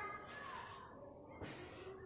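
Soft rushing strokes of friction on long wet hair, two of them about a second and a half apart.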